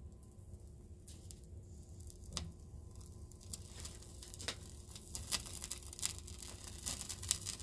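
Paper burning in an open flame, crackling in small irregular pops that grow denser and louder in the second half.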